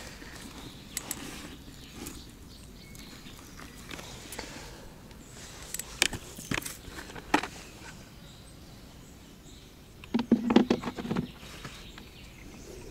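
Scattered sharp clicks and knocks from gear being handled, with a short clatter of rapid knocks about ten seconds in, over steady outdoor background noise.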